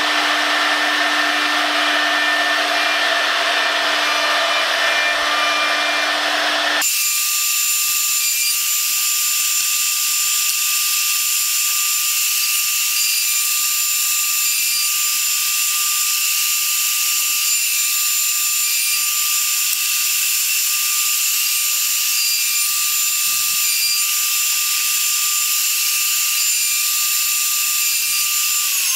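Electric router spindle running at high speed with a router bit cutting a profile along a wooden strip: a steady whine over the hiss of the cut. The whine steps up in pitch about seven seconds in and falls away as the spindle winds down near the end.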